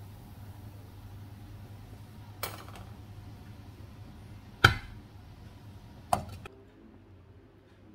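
Kitchen cookware clatter: three sharp knocks of utensils against pots or dishes, the loudest about halfway through, over a steady low hum that drops away near the end.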